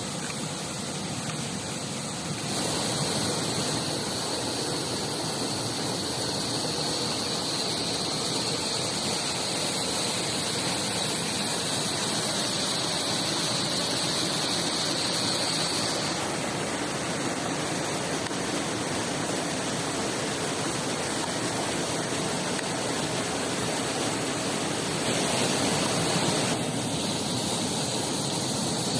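Rushing water of a river or waterfall, a steady, even rush. Its tone shifts abruptly a few times: a couple of seconds in, about halfway through and near the end.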